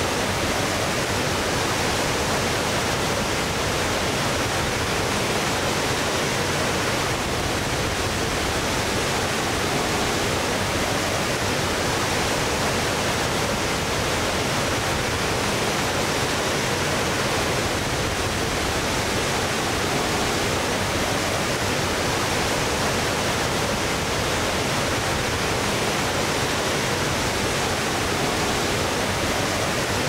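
Large waterfall: a steady, unbroken rush of falling water, even and hiss-like.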